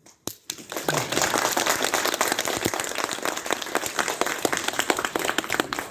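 Audience applauding: many hands clapping, starting just after the start, quickly building to a full patter, and thinning slightly near the end.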